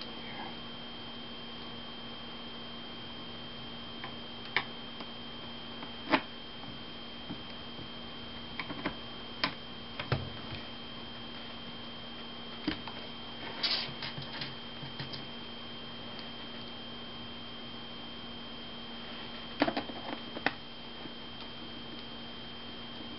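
Scattered light clicks and taps of a small screwdriver and screws on laptop screen parts as screws are fitted into the bottom of the screen assembly, with a quick flurry about halfway through and two clicks near the end. Under them a steady hiss with a constant low hum and a high whine.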